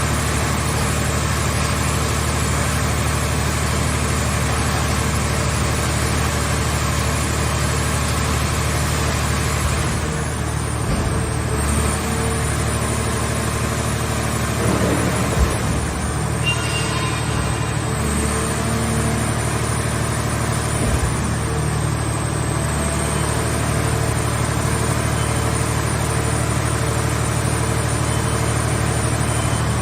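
Mobile hydraulic scrap car baler running with a steady engine hum. A short knock comes about fifteen seconds in, followed by a brief metallic squeak.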